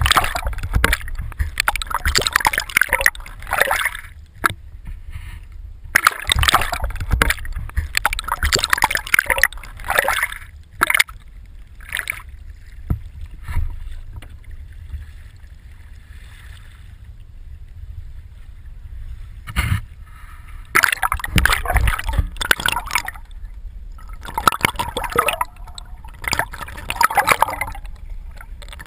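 Sea water splashing and sloshing around a camera at the waterline, in loud bursts with a quieter stretch in the middle, over a steady low rumble.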